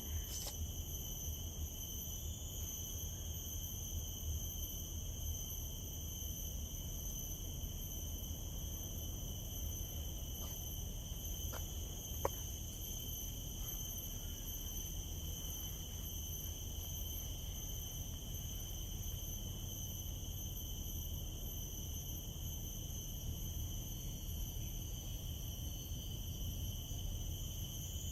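Steady chorus of insects in tropical woodland: several unbroken high-pitched tones at different pitches, over a low rumble. One sharp click comes about twelve seconds in.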